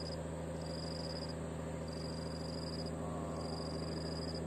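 An insect calling in high-pitched trills of about three-quarters of a second each, repeating roughly once every 1.3 seconds, over a steady low hum.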